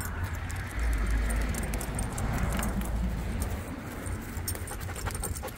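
Metal hardware on a Siberian husky's harness and leash jingling as the dog walks, with a low rumble that swells and fades in the first half.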